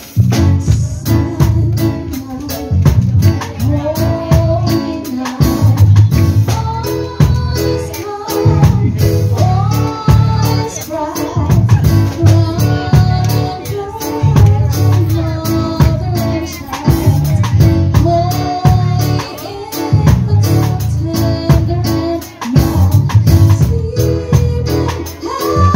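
Loud music with a steady drum beat, heavy bass and a melody line over it.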